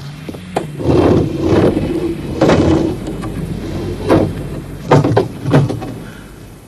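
A car approaching along a drive with its engine running, a steady low hum that swells in loudness several times.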